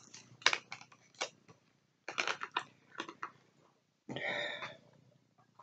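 Irregular light clicks and taps in a small room, then a short throaty vocal sound about four seconds in.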